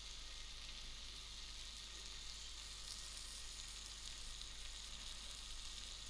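Chicken and vegetable skewers sizzling on a hot, oiled plancha: a faint, steady frying hiss.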